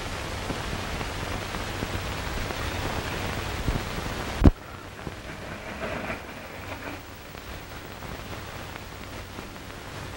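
Steady hiss of an old film soundtrack, broken about four and a half seconds in by one loud, sharp knock. After the knock the hiss is quieter.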